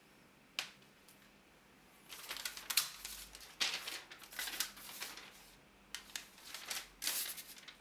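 Paper receipt being handled and torn: a single click about half a second in, then irregular crinkling and rustling of the paper.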